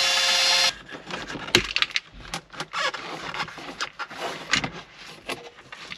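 Cordless drill running at a steady pitch as it backs out a dashboard screw, stopping less than a second in. Then scattered light clicks and knocks of the screw and parts being handled.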